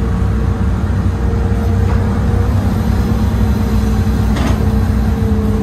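Old Hitachi excavator's diesel engine running steadily, heard from inside the operator's cab, with a steady whine over the drone and a couple of faint clicks.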